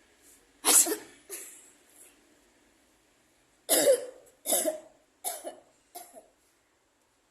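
A person sneezing over and over: the loudest sneeze comes about a second in, with a smaller one just after, then a run of four more about a second apart in the second half. The sneezes are forced for a sneezing challenge, some brought on by poking inside the nose.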